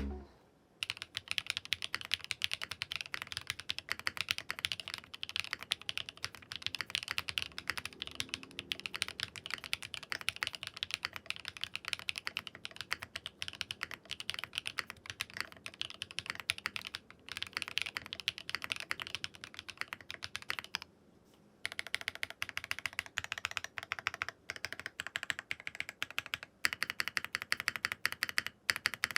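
Rapid typing on a Meletrix ZOOM75 TIGA custom mechanical keyboard fitted with its silica gel mount: a fast, continuous run of keystrokes with one brief pause a little over two-thirds through. It is a sound test of the silica gel mounting option.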